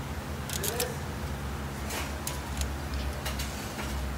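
Light metallic clicks and taps of a bearing press's steel adapters and gold T-handle being fitted onto its threaded rod through a bicycle hub, several scattered ticks over a steady low hum.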